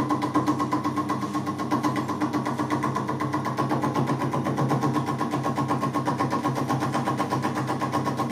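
TAIG micro milling machine running with its milling cutter taking a cut: a steady motor and spindle hum with a regular knock about four times a second. It is the even knocking of a cut that is leaving a smooth, finish-quality surface.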